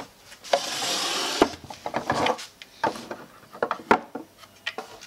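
Glass spice jars being slid and set into a wooden drawer rack: a scraping rub of glass and wood about half a second in, then scattered light knocks and taps.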